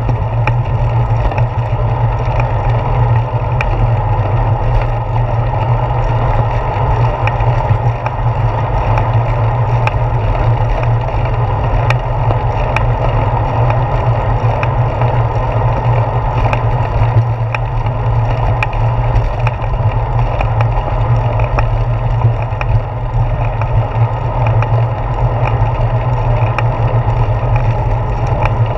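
Steady low rumble of wind and road vibration picked up by a handlebar-mounted GoPro as a bicycle rolls along a paved path, with scattered faint clicks and rattles from the mount.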